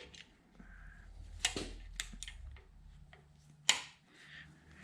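Locking pliers gripping and twisting a seized block heater in a bare 454 big-block engine block: scattered short metal clicks and scrapes over a low rumble in the first half, with the sharpest click a little before the end.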